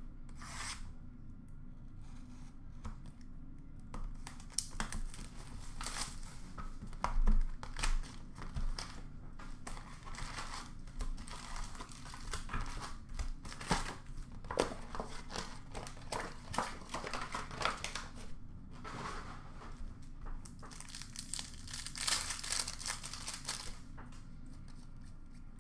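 Hands tearing open a sealed hobby box of Upper Deck Series 1 hockey cards and pulling out the foil-wrapped packs: irregular crinkling and tearing of wrapper and cardboard, in short bunches of rustles.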